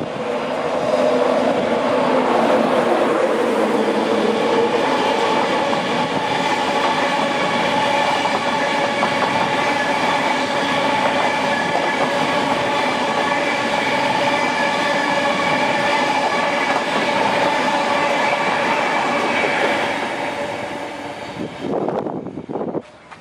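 Steam-hauled passenger train passing at speed: LNER A1 Pacific No 60163 Tornado and its coaches rushing by on the main line. The noise swells about a second in, holds steady for most of the time, and dies away near the end.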